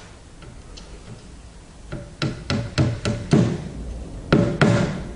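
Hammer tapping small pins into an ash wooden door frame. After a quiet start come about six sharp taps at roughly three a second, a brief pause, then a few more taps near the end.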